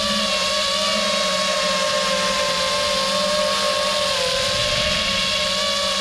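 FPV quadcopter's brushless motors and propellers whining steadily in flight, the pitch dipping briefly a little after four seconds in as the throttle eases; the 6S quad is running on a 4S LiPo.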